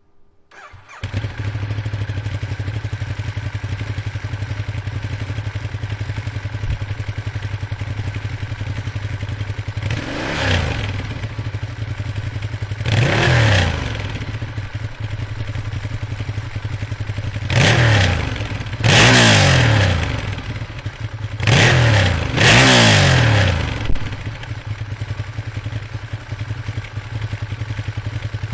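2011 Ducati Diavel's 1198 cc L-twin engine on its stock exhaust, coming on about a second in and idling steadily. It is then revved in about six quick throttle blips, each rising and falling in pitch, before settling back to idle near the end.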